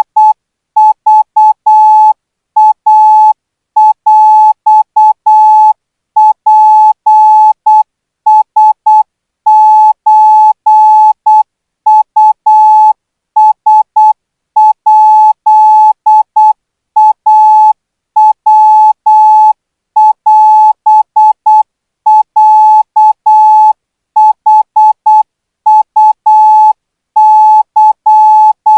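Morse code practice tone: a single beep at one steady pitch keyed on and off in short dots and longer dashes at about 12 words per minute, sending Thai Morse code for radio-operator training.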